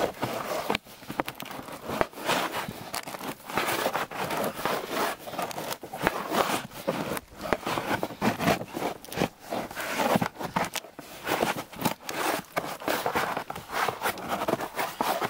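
Birch bark being pried off a felled log with a flat plastic scraper: irregular scraping and crackling as the tool is worked under the bark. It is winter bark, with no sap to loosen it, so it clings to the wood and has to be worked free.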